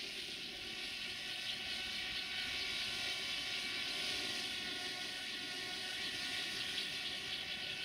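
Small quadcopter drone's propellers whirring: a steady high whine of several even tones over a hiss, holding level throughout.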